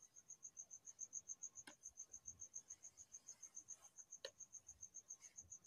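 Near silence with a faint cricket chirping: a steady run of high, evenly spaced pulses, about ten a second. Two soft clicks are heard, one near the middle and one a little later.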